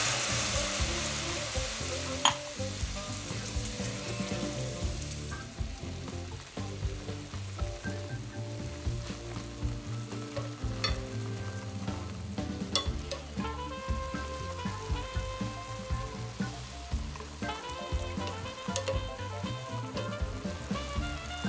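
Water poured into a hot pan of chicken thighs and onions sets off a loud sizzle that dies down over the first few seconds to a gentle simmer. Chopsticks stir the pan, with a few sharp taps against it, over soft background music.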